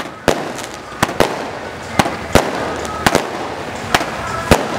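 Firecrackers going off: about ten sharp bangs at uneven intervals, some in quick pairs.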